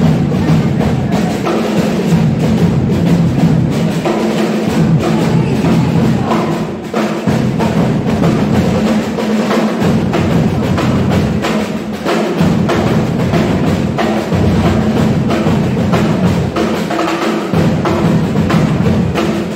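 A live drum ensemble plays a steady rhythm on a set of drums with sticks: sharp hits over a pulsing low drum pattern that drops out briefly every few seconds.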